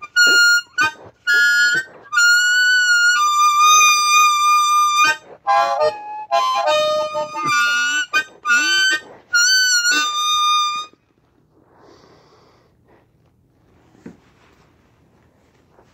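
Blues harmonica played alone in short phrases of held notes, some bending down in pitch; the playing stops about eleven seconds in.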